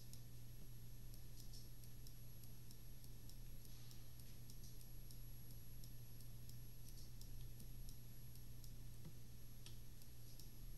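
Faint, scattered sharp clicks at irregular intervals over a steady low electrical hum.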